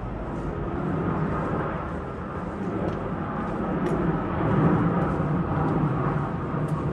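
Vehicle rumble that slowly swells and eases again, loudest about two-thirds of the way through.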